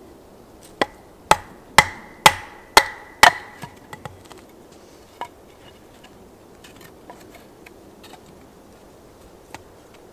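A small axe being driven into an upright log with a wooden baton to split it: six sharp blows about half a second apart, each with a short metallic ring. A few lighter wooden knocks follow.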